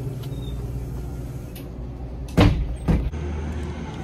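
A door being pushed open and swinging shut: two loud knocks about half a second apart, over a steady low hum that changes just after them.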